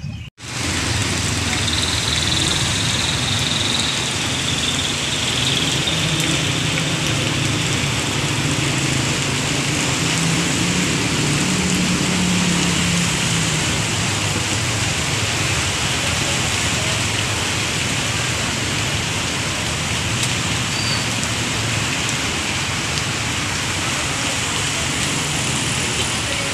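Heavy rain pouring steadily, with traffic (tricycles, motorcycles and cars) driving through a flooded road and hissing through the standing water.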